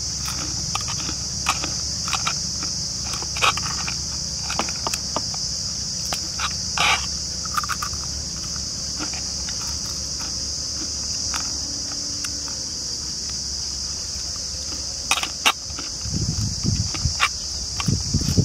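Steady high-pitched chorus of crickets, with scattered sharp crunches from chewing crisp fried peanut pakoda, and a hand picking through the pakoda in a metal bowl near the end.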